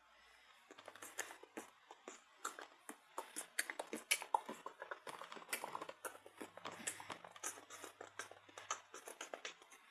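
Many quick, irregular clicks and taps, several a second.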